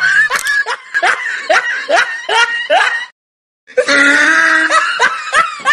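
Laughter: a run of short, rising giggles, about three a second, then a brief break about three seconds in, followed by a long drawn-out voiced cry.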